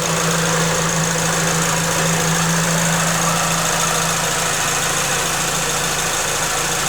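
Supercharged Suzuki Swift Sport ZC31S engine idling, with a steady high-pitched squeak from the supercharger's V-belt at the main pulley running over the engine sound. A low hum in the engine note weakens about four seconds in.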